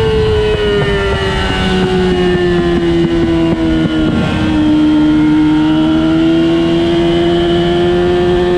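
Engine of a vehicle lapping a race track. Its pitch drops steadily as it slows for about four seconds, then climbs slowly under light throttle.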